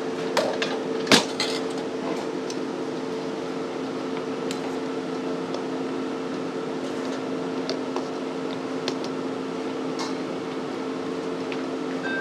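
Steady hum of kitchen machinery with a metal ladle clinking against a steel pot and bowls: a sharp metal knock about a second in, then scattered lighter clinks.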